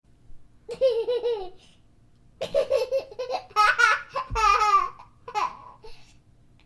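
A baby laughing in several short bouts of pulsing, high-pitched giggles, reaching a higher pitch in the middle.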